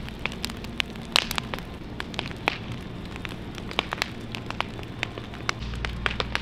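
Bonfire of logs and brush burning, crackling with many irregular sharp pops.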